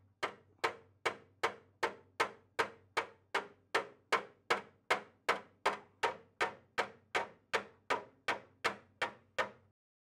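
A steady run of sharp, evenly spaced strikes, about two and a half a second, each ringing briefly, over a low steady hum; they stop shortly before the end.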